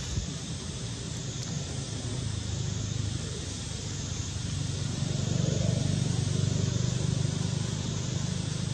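Steady low rumble and hiss of outdoor background noise, growing louder about five seconds in.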